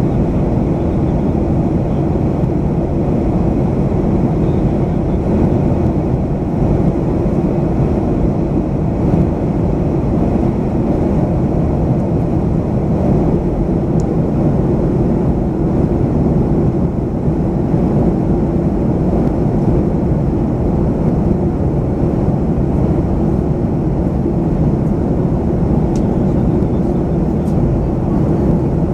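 Steady cabin drone of a Boeing 737-500 in flight, the noise of its CFM56-3 turbofan engines and the rush of air over the fuselage, heard from a window seat over the wing. It holds a low, even level throughout.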